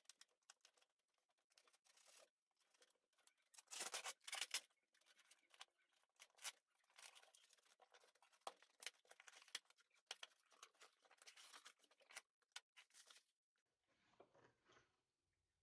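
Packing tape on a cardboard box being slit with a knife and ripped off in a quick series of tearing and scraping sounds, loudest about four seconds in. Near the end, softer rustling as small cardboard packs are moved about inside the opened box.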